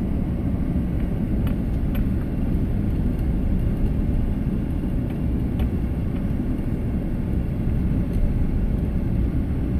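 Car driving along a street, heard from inside the cabin: a steady low rumble of engine and tyre noise.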